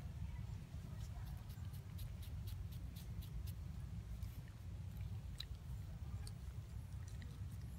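Steady low outdoor rumble with many faint, sharp, high clicks over it, bunched in the first few seconds and a few more later on.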